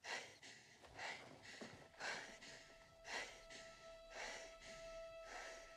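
Faint opening of a movie trailer soundtrack: soft breathing, about one breath a second, with a faint held musical tone coming in about two seconds in.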